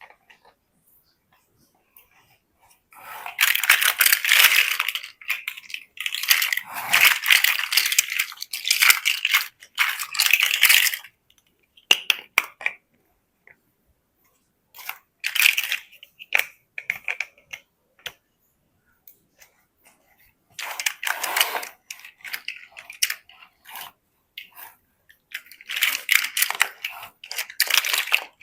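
Plastic building bricks clattering and clicking as they are handled and pressed together, in bursts of a few seconds with short pauses between.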